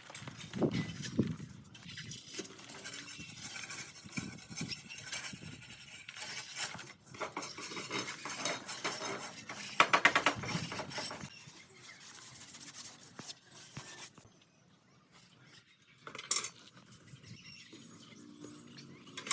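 Hand tools at work on tiling: a metal trowel scraping and clinking against mortar and ceramic tile in irregular scrapes and taps, with a short, loud, rapid rattle about ten seconds in.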